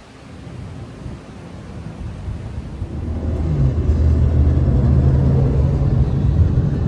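Car engine and road noise heard from inside the cabin while riding in a moving car. It grows much louder about three seconds in and settles into a steady low hum.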